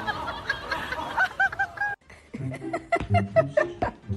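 People laughing in short, high-pitched bursts, cut off abruptly about two seconds in.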